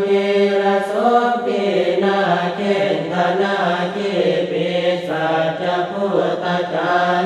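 Buddhist chanting in Pali in the Thai style: a steady, near-monotone recitation with long held syllables and small shifts in pitch.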